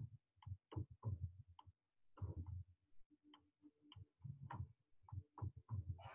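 A series of short, faint ticking sounds, about two or three a second and not evenly spaced.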